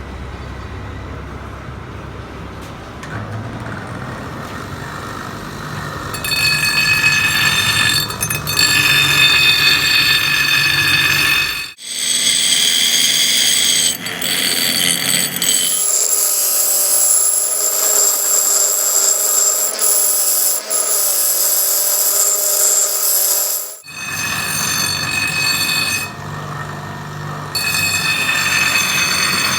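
Power grinder working on rusted steel gear teeth: a steady high-pitched whine over grinding noise. The sound breaks off and comes back changed twice, about 12 and 24 seconds in.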